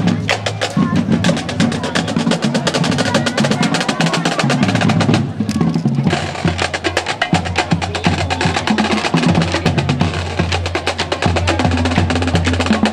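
Marching band drum line playing a marching cadence, a fast run of snare drum strokes over bass drums.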